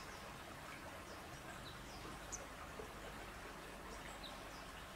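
Faint, short, high chirps from small birds, falling in pitch, every second or so, over a steady outdoor hiss.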